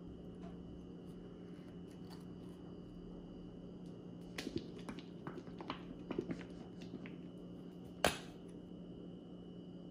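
Small clicks and knocks of a popsicle in its plastic mould holder being handled and set on a ceramic plate, then a single sharp snap about eight seconds in as the plastic flip-top cap of a squeeze bottle of chocolate shell topping is thumbed open. A steady faint hum lies underneath.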